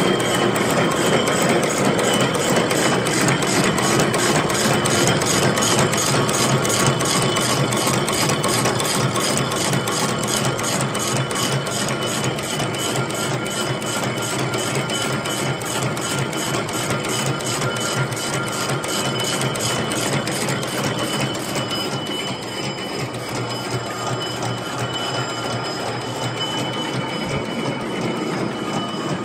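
Double-twist barbed wire machine running at speed: a steady mechanical clatter from the barb-wrapping head and the spinning twisting drum, with a fast, even ticking and a few steady whining tones.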